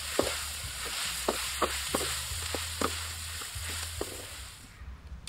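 Toad frog pieces and greens sizzling as they are stir-fried in a steel wok, with a spatula scraping and clinking against the metal about once or twice a second. The sizzle stops abruptly shortly before the end.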